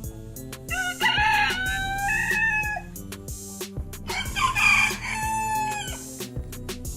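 A rooster crowing twice, each crow about two seconds long and trailing off in pitch at the end, over background music with a steady beat.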